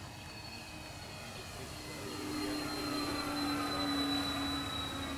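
Radio-controlled model Avro Lancaster's motors and propellers whining as it flies past overhead. The sound grows louder about two seconds in, peaks as the plane passes over, and its high tone falls slightly in pitch.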